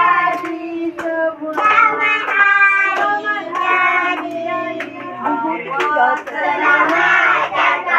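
A group singing a birthday song together, with children's voices loudest, over sharp hand claps.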